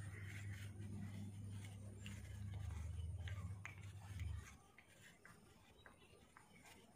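Hand kneading and squeezing damp rabbit mash of wheat bran and groundnut cake in a small bowl: faint, scattered soft clicks and crackles. A low steady hum runs underneath and cuts off suddenly about four seconds in.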